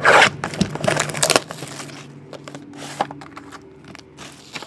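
Foil-wrapped trading card packs crinkling as they are handled, with a loud burst of crinkling in the first second and a half, then lighter rustles and a few sharp clicks.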